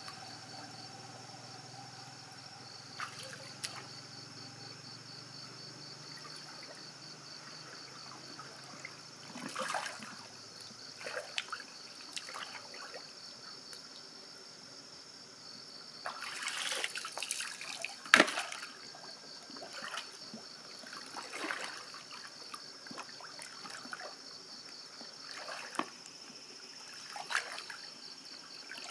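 Shallow river water sloshing and splashing as hands grope along the bottom, in irregular bursts, the loudest splash about 18 seconds in. A steady high-pitched hum runs underneath.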